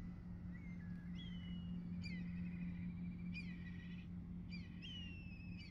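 Black kites calling repeatedly: high whistles that leap up and then slide down into a long wavering trill, several calls overlapping, over a steady low hum.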